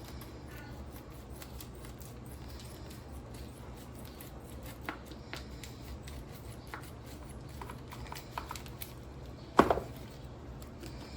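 Scattered light clicks and taps of kitchen things being handled, with one sharp knock about two-thirds of the way through, over a steady low hum.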